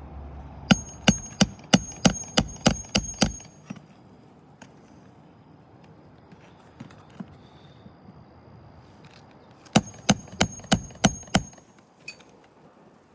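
A 16-ounce Craftsman hammer driving roofing nails through a shingle into the roof deck. About nine quick blows, roughly three a second, each with a short metallic ring, then a pause of several seconds and about six more blows.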